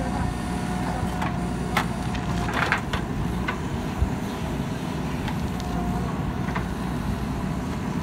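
JCB 3DX backhoe loader's diesel engine running steadily as the backhoe arm digs and swings, with a few sharp knocks from the bucket and arm partway through.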